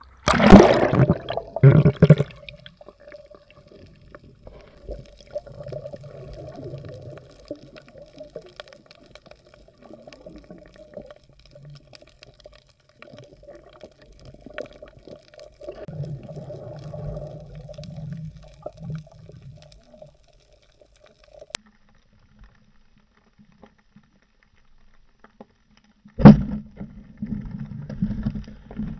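Splash and rush of water as a diver goes under the sea at the start, then muffled underwater water noise around the diver. Another loud rush of water comes near the end.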